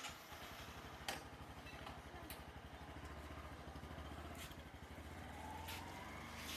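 A motor vehicle's engine running steadily, faint, with a fast even low pulse and a few sharp clicks.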